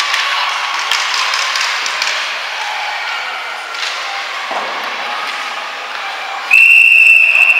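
Ice hockey play echoing in an indoor rink: scattered knocks and thuds from sticks, puck and boards over distant voices. About six and a half seconds in, a loud, steady, high whistle blast cuts in and holds, typical of a referee stopping play.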